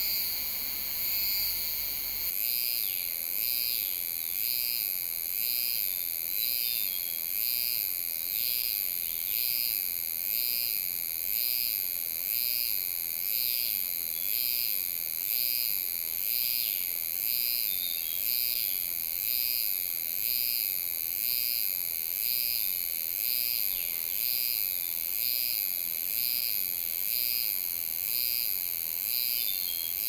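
Lai's spring cicada (Euterpnosia laii) singing: a high-pitched call that pulses about once a second. From about two seconds in, the song comes from a hoarser-sounding individual.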